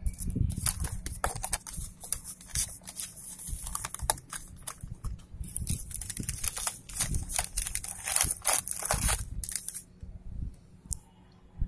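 Plastic courier bag rustling and crinkling as it is handled and measured with a tape measure, with close handling knocks. The noise is dense and irregular, then dies down near the end.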